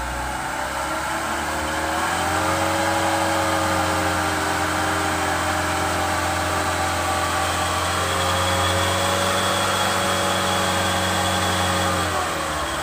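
Truck engine held at raised revs while a cable winch drags a dump truck through mud: the engine note rises about a second in, holds steady, and drops back near the end. A thin high whine joins in over the second half.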